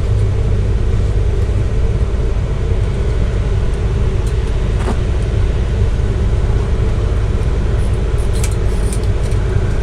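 Motorhome engine idling, a steady low rumble heard from inside the rig, with a few faint clicks and rustles of handling in the second half.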